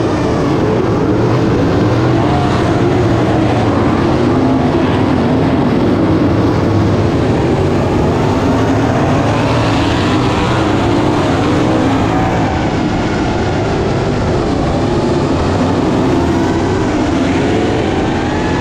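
Several winged sprint car engines running at race pace, a dense, loud engine racket with pitches that waver and bend as the cars go through the turns, mixed with the FPV quadcopter's motors whining close to the microphone.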